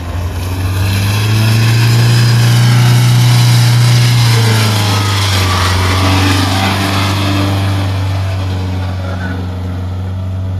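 Mahindra Thar's engine revving hard as the 4x4 drives through deep mud. The revs rise about a second in, hold for a few seconds, then ease off around the middle.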